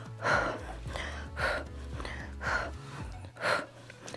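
A woman's short, forceful breaths, four of them about a second apart, in rhythm with her bicycle crunches, over steady background music.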